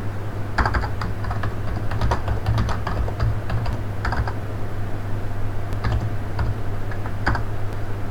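Computer keyboard being typed on, keystrokes clicking in short irregular bursts, over a steady low hum.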